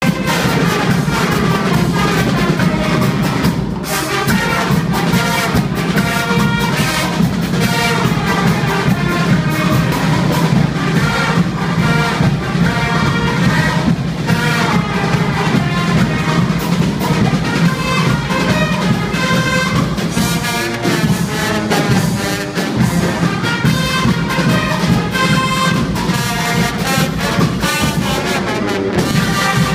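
Guggenmusik carnival band playing loud brass music: trumpets and saxophones blaring a tune over a steady drum beat.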